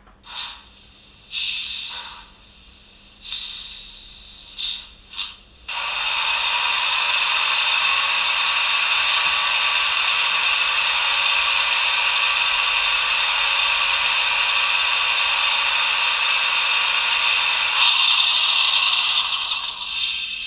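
Sound decoder in a model ČD class 151 electric locomotive playing standing-locomotive machinery sounds through its small loudspeaker: about five short mechanical bursts, then a steady mechanical running sound that starts about six seconds in, shifts near the end and fades away.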